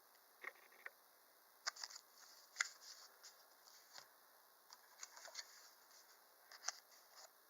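Faint scattered clicks and short rustles of small paper packets being handled and set down on a table.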